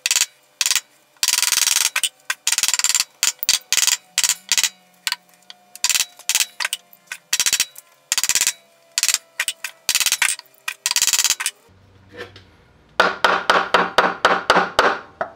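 Hammer blows driving a lathe spindle out through its headstock: many sharp metallic strikes, some in quick strings, with faint ringing between them. A fast run of lighter taps comes near the end.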